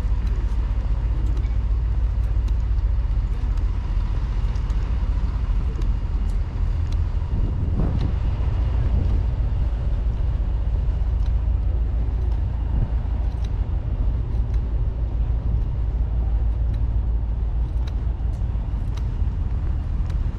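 Steady low rumble of motor vehicle engines, swelling briefly about eight seconds in, with faint scattered ticks.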